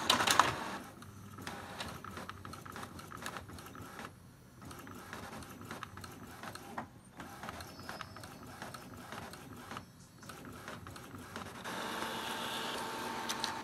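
Epson inkjet printer printing a nozzle check page: the print mechanism runs with rapid clicking and whirring, dips briefly twice, and settles into a steadier motor whir near the end as the page feeds out.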